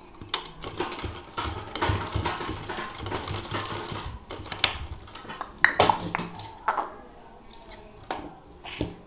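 Domestic sewing machine stitching in short runs, with fabric rustling and several sharp clicks as the finished piece is handled and pulled out from under the presser foot.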